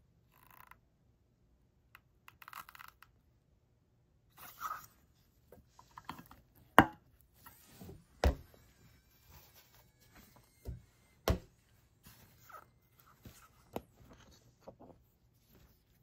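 Small hard objects handled and set down on a work surface: scattered light taps and clicks with short rustles between, and a few sharper knocks in the middle.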